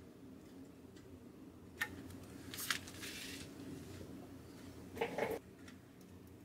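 Faint soldering at a bench: a sharp click just under two seconds in, a hiss about a second long as flux sizzles under the soldering iron tip, and a short crackle around five seconds in.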